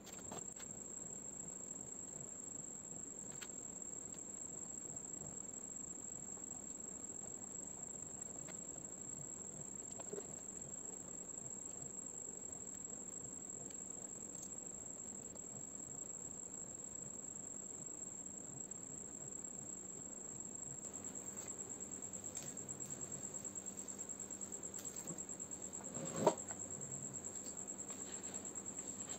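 Faint, steady high-pitched insect trill, like a cricket singing, with one sharp click near the end.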